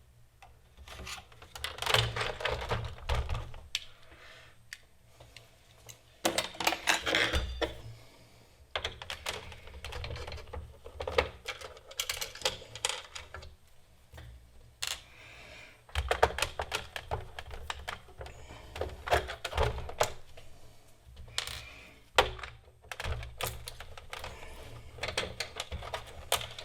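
Hand work on an Amiga 500's plastic case: a screwdriver clicking and scraping as the case screws are taken out, with knocks as the case is handled and small screws clattering down.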